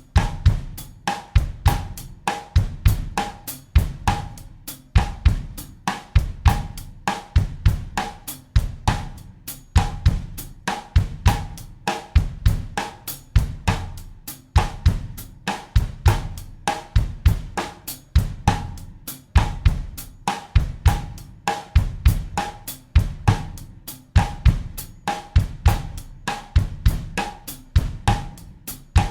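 Acoustic drum kit playing a steady bossa nova groove at 100 BPM in 4/4: bass drum, cross-stick or rim clicks on the snare, and hi-hat or cymbal in an even, repeating loop.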